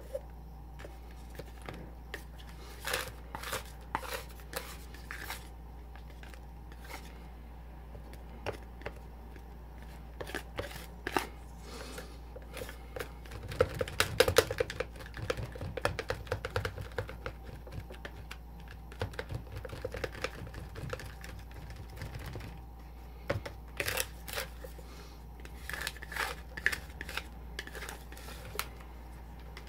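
Plastic spatulas chopping and scraping on a chilled metal rolled-ice-cream pan, breaking up a half-frozen cheese ice-cream mixture: irregular clicks and taps, busiest about halfway through and again near the end.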